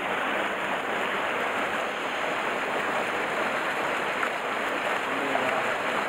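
Mountain stream water pouring steadily over rocks in a small cascade into a pool.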